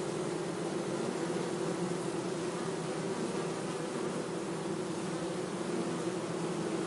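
Bees buzzing in a steady, unbroken drone with a low hum.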